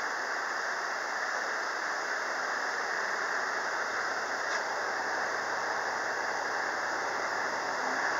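Steady rush of exhaust from the tailpipe of a running Toyota 1HZ 4.2-litre inline-six diesel, close to the pipe, blowing against a sheet of white paper held behind it to check the exhaust for smoke and soot.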